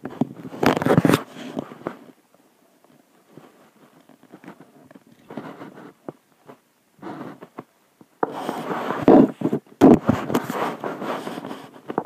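Close handling noise: cloth rubbing and scraping against the recording device, with fumbling clicks. Loud rustling bursts in the first two seconds and again from about eight seconds in, quieter scraping between.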